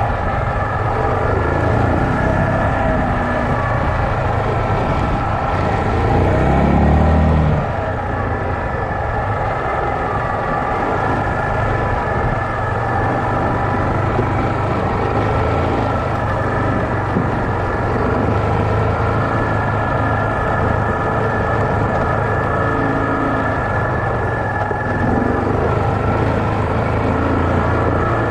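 Yamaha Kodiak 450 ATV's single-cylinder engine running steadily while riding, with one brief surge in revs about six seconds in.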